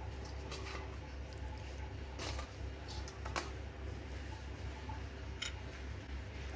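A metal spoon clicking and scraping faintly against a bowl while raw chicken pieces are mixed into a thick yogurt marinade. A handful of separate clicks stand over a low steady hum.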